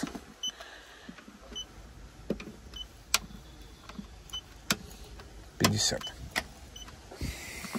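Light taps and clicks of a paint thickness gauge probe being set against car body panels, with a few short high beeps early on and a brief voice sound about six seconds in.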